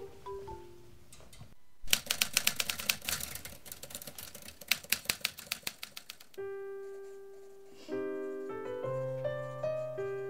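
Typewriter keys clattering rapidly for about four seconds, after the tail of the previous music cue. Soft piano music starts near the middle and carries on to the end.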